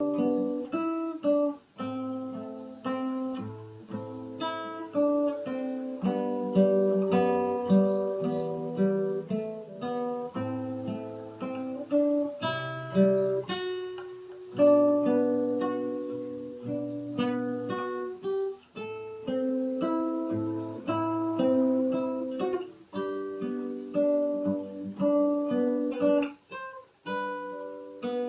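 Solo acoustic guitar played fingerstyle: a plucked melody over a picked bass line, the notes left to ring.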